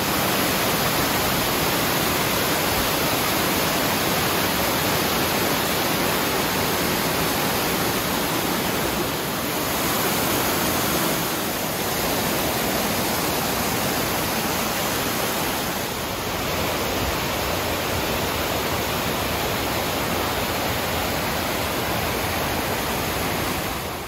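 Steady rush of white water from a large cascading waterfall pouring over rock ledges.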